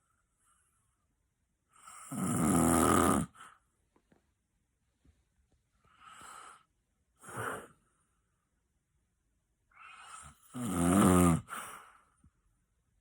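A person snoring loudly: two long snores, about two seconds and ten seconds in, with two shorter, quieter breaths between them.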